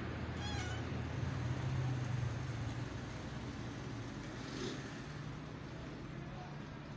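Calico cat meowing, a short meow about half a second in, over a steady low hum.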